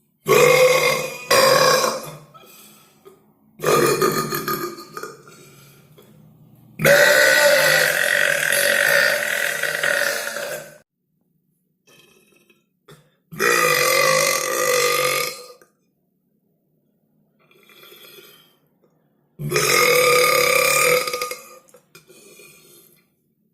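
A series of loud human burps, about six, separated by short pauses; the longest, near the middle, is a drawn-out belch of about four seconds, and a couple of faint ones come between the later burps.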